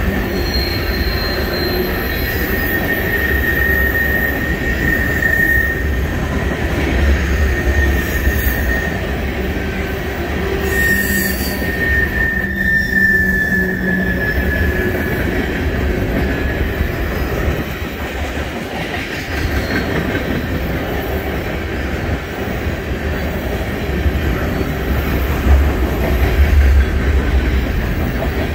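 Empty oil tank cars of a freight train rolling past: a continuous rumble of wheels on rail with a thin, steady wheel squeal that fades in and out, clearest in the first few seconds and again about halfway through.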